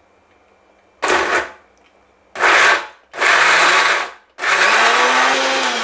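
Prestige electric mixer grinder run in four short pulses, the motor spinning up and winding down each time, with the last burst the longest, as it grinds betel leaves and gulkand with a little milk into a paste.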